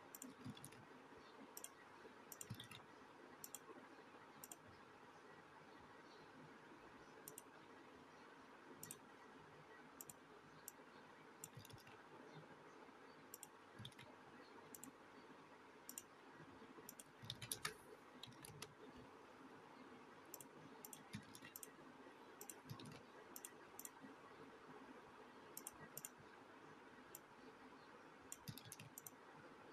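Near silence: faint room hiss with scattered small clicks, bunching into a short flurry a little past halfway.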